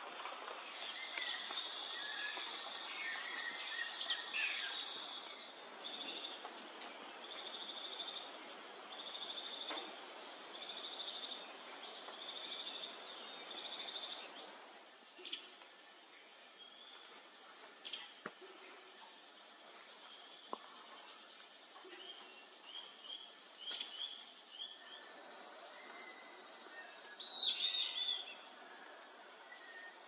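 Tropical forest insects droning on one steady high pitch, with scattered short bird chirps and calls over them.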